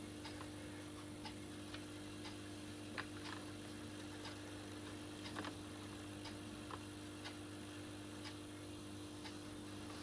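Faint regular ticking, about two ticks a second, over a steady low hum.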